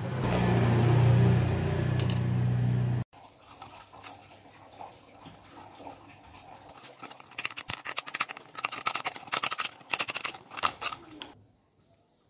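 A loud steady hum with a hiss over it, cutting off abruptly about three seconds in. Then thin plastic from a bottle bottom is handled, with irregular crinkles and clicks that grow busier and stop shortly before the end.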